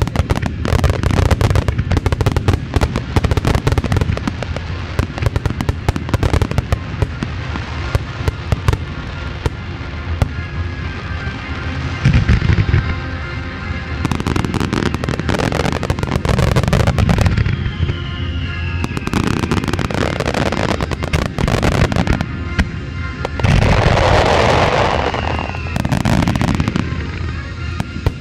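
Fireworks bursting in quick succession: dense crackling and popping with deeper booms, several clustered near the middle and near the end, and two short falling whistles, over accompanying music.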